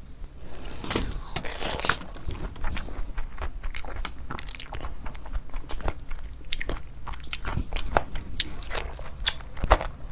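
A person eating close to the microphone: biting and chewing with many sharp, irregular clicks and smacks.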